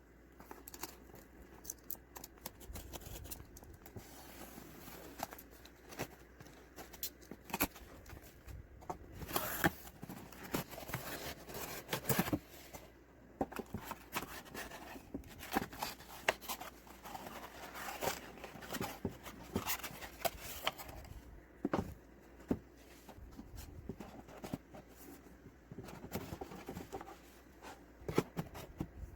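Irregular clicks, taps and rustling of small objects being handled, like plastic parts and packaging, in a small room.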